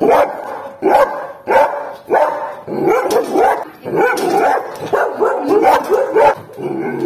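Belgian Shepherd barking aggressively in a rapid string, the barks coming faster after about three seconds: reactive, over-excited barking at a person, out of distrust of people.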